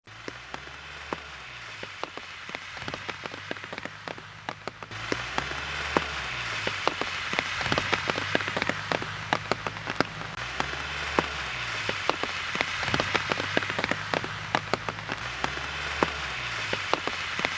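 Rain or wet falling snow pattering on a surface: a steady hiss dense with distinct drop clicks, growing louder about five seconds in. A low hum that shifts in steps every few seconds runs underneath.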